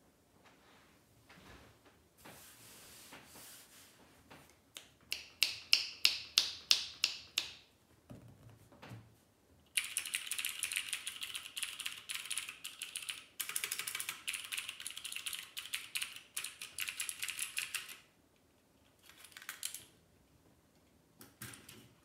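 Typing on a Discipline65 keyboard with clicky Cherry MX Blue switches. First comes a string of separate, loud, crisp keystrokes, then about eight seconds of fast, continuous clicking, then a couple of short bursts near the end.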